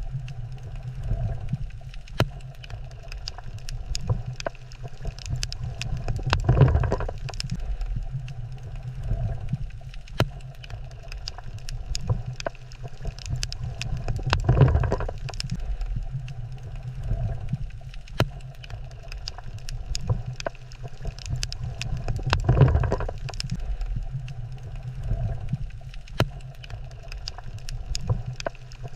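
Underwater reef ambience: a steady low rumble under a constant crackle of sharp clicks, swelling louder about every eight seconds.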